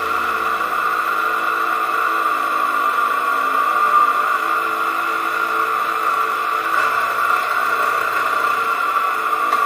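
Aprilia RS125's two-stroke single-cylinder engine running steadily at low revs.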